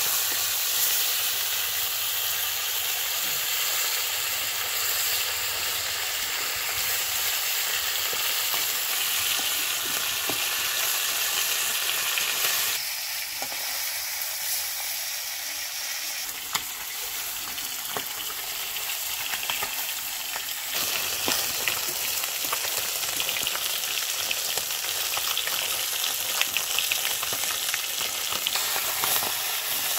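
Rohu fish steaks sizzling steadily as they fry in oil in an iron kadai, with scattered clinks and scrapes of a metal spatula turning them against the pan. The sizzle softens a little for several seconds midway.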